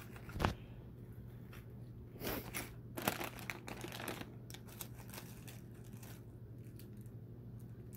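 Plastic wrappers and a snack bag crinkling as hands rummage through a basket, in bursts from about two to four and a half seconds in, after a single knock about half a second in. A steady low hum runs underneath.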